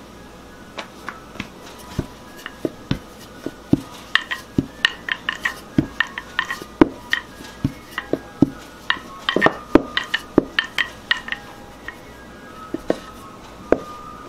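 Wooden rolling pin rolling dough thin on a granite countertop: an irregular run of sharp clacks and knocks as the pin bumps and rolls against the stone, thickest in the middle stretch.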